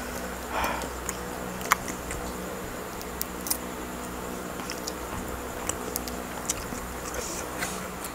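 A cooked prawn being peeled by hand, with scattered small clicks and crackles as the shell comes apart, over a steady low hum.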